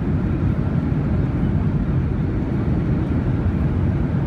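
Boeing 737-800 on its landing roll, heard from inside the cabin: a loud, steady low rumble of the engines and the wheels on the runway.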